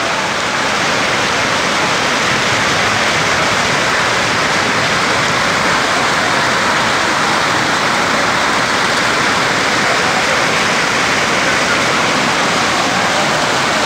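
Floodwater rushing fast through a street, a loud steady rush of water.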